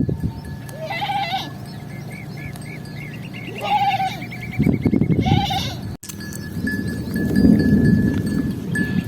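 Sheep bleating, three or four short calls in the first half, with a small animal bell ringing in quick repeated strokes. A low muffled noise fills much of the second half.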